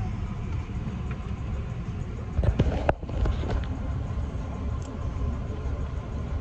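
Shuttle van riding along, heard from inside the cabin: a steady low engine and road rumble, with a brief knock and rattle about two and a half seconds in.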